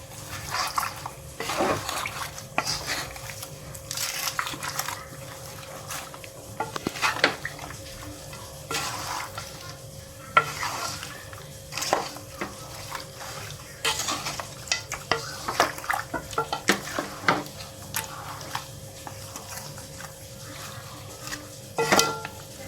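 Seasoned chicken pieces being mixed in a pot: irregular scraping and knocking of the utensil against the pot.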